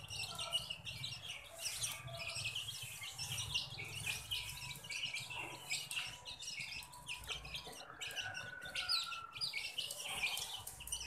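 A flock of young domestic chicks peeping all at once, a dense run of short, high chirps overlapping with no pause.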